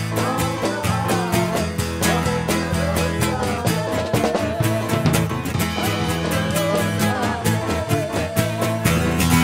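A live worship band plays an upbeat song: electric guitar and keyboard over a steady, driving beat, with singing voices carrying the melody.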